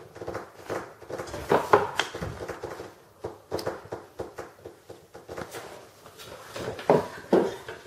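Handling noise of a small desktop microphone tripod stand being unfolded: a run of small clicks and clacks from its legs with rustling of cardboard packaging, and louder knocks about two seconds in and again near the end.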